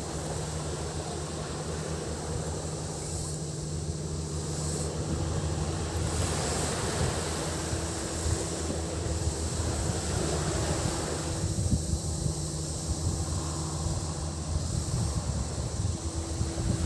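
Sea waves washing onto a beach, with gusts of wind buffeting the microphone, and a steady high drone of cicadas underneath.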